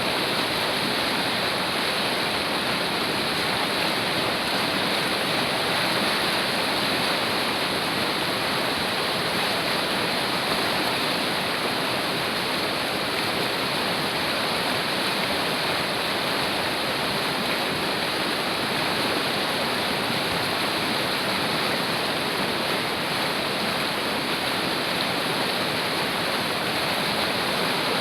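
A fast-flowing mountain river or stream rushing over rocks: a steady, loud roar of water that does not change.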